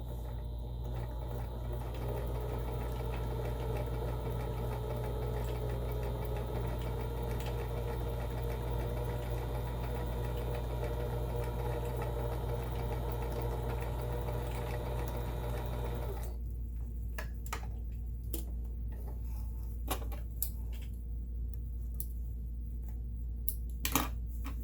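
Kenmore model 17922 electronic sewing machine running steadily, stitching one of its stitch patterns, then stopping abruptly about sixteen seconds in. A few scattered clicks and knocks follow as the machine is handled.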